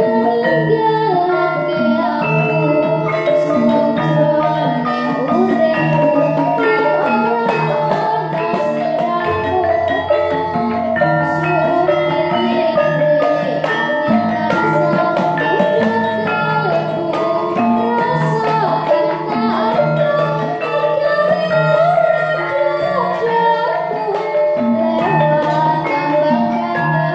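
Javanese gamelan ensemble playing, its metallophones and gongs ringing in a steady, repeating pattern, with a girl singing along through a microphone.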